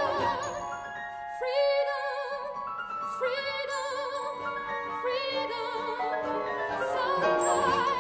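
Contemporary classical chamber music: a soprano sings held notes with wide vibrato over layered, sustained instrumental tones, with a few short high ringing notes.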